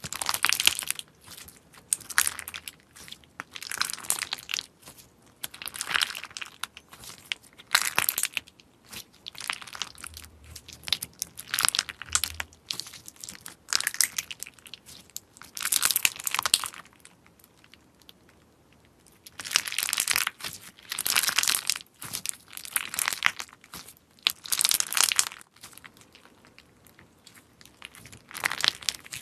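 Hands squeezing and stretching a clear slime packed with unicorn-shaped confetti pieces, making crinkling, crunching crackles in repeated bursts of about a second, with short pauses between squeezes and a longer run of crackling in the later half.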